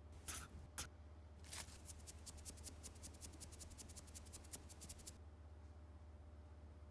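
A few separate small clicks, then a quick even run of light clicks, about seven a second, lasting three and a half seconds, over a low steady hum.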